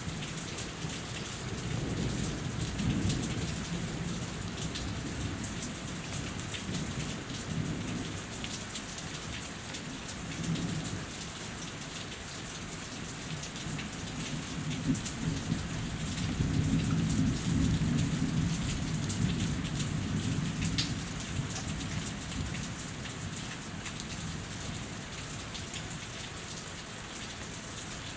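Steady rain falling and dripping off a house roof, with low rolling thunder rumbling twice: a weaker roll a couple of seconds in and a louder, longer one a little past the middle.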